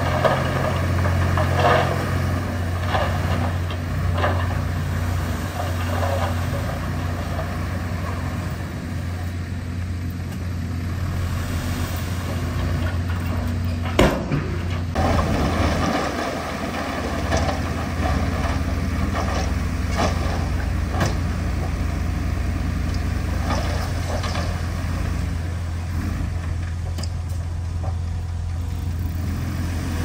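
Heavy diesel engine of earthmoving machinery running steadily at a low pitch, with scattered metallic clanks and one louder knock about halfway through.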